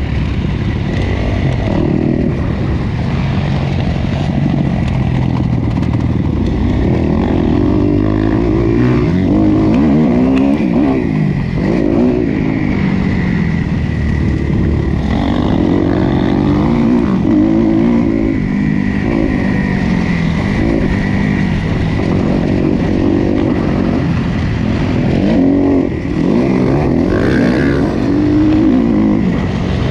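Motocross bike engine heard from an onboard camera, revving up and falling off again and again as the rider accelerates, shifts and rolls off through the corners of a dirt track.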